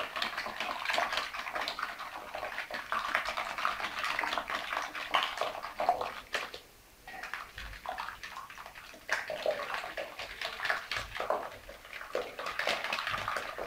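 Wire whisk beating a runny egg, sugar and milk mixture in a bowl: fast, continuous wet sloshing and whisk strokes, with a short pause about six and a half seconds in.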